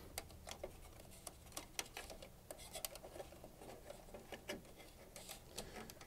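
Faint, irregular small clicks and taps of cables being handled and tucked into place inside an open computer case.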